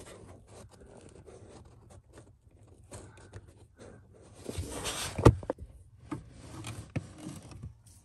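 Handling noise of a wiring harness being worked through the firewall under the dashboard: wires and a plastic connector scraping and rustling against carpet and trim, with small clicks. One sharp click or knock about five seconds in is the loudest sound.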